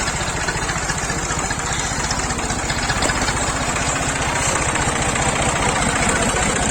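Small farm tractor engine idling steadily with an even, rapid low putter.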